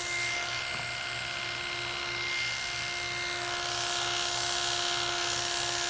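Electric pet clippers running with a steady buzz.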